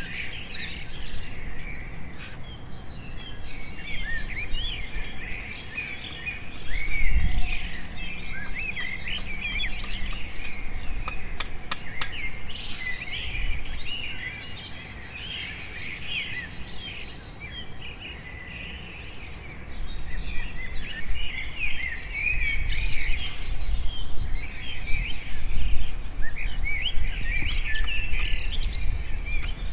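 Several birds chirping and calling continuously in dense overlapping song, with a run of sharp clicks near the middle.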